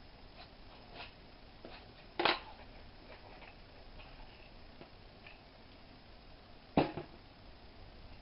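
Light clicks and taps of tools and metal parts being handled during motorcycle brake caliper disassembly, with two sharper knocks, about two seconds in and again near the end, the second one doubled.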